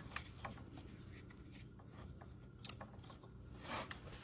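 Faint clicks and light rubbing from small plastic 3D-printer parts being handled, with a short scraping rustle near the end.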